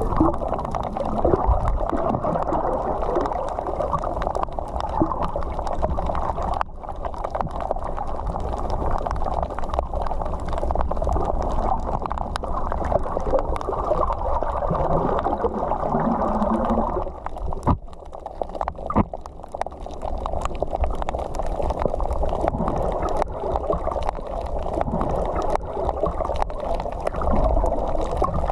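Muffled water noise recorded underwater, a dull low rushing with many faint scattered clicks, dipping briefly quieter about eighteen seconds in.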